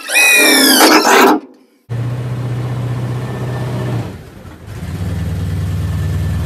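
A cordless drill runs for about a second and a half, its whine rising and falling in pitch. Then the 1985 GMC Sierra's engine idles steadily, heard from behind the truck near the exhaust, with a brief dip a little past halfway.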